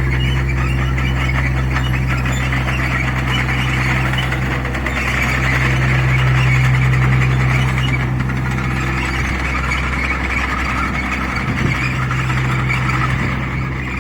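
Small excavator running under work, its engine a steady low drone with a wavering high squeal over it, rising a little in the middle.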